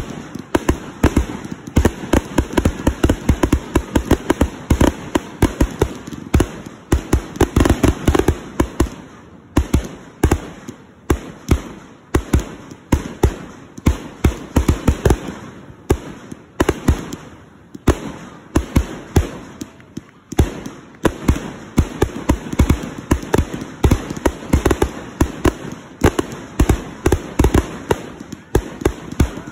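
Aerial fireworks firing in rapid volleys: a dense run of launch thumps and bursting bangs, several a second, with a few brief lulls.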